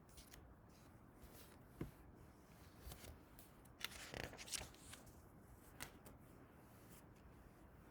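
Near silence with a few faint taps and a brief soft rustle about four seconds in, as of a picture book's paper pages being handled.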